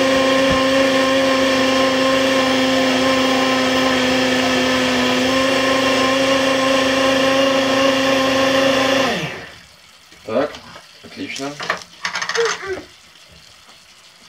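Small cup-style personal blender motor running steadily under load while puréeing cooked butternut squash, then winding down with a falling pitch when released about nine seconds in. A few short knocks follow as the cup is handled.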